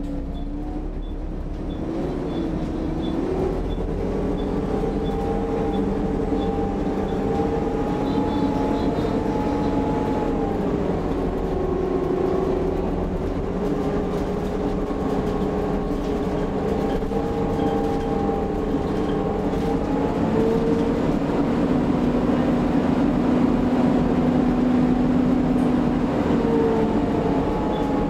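Volvo B7TL double-decker bus's 7-litre six-cylinder diesel and ZF automatic gearbox running under way, heard inside the upper deck. Steady road rumble under engine and gearbox tones whose pitch rises and shifts several times as the bus accelerates and changes gear, falling again near the end.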